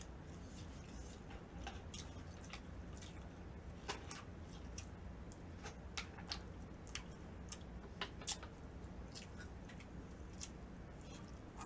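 Eating sounds close to the microphone: scattered soft clicks and smacks of chewing and of chopsticks on a plastic takeout tray, over a low steady hum.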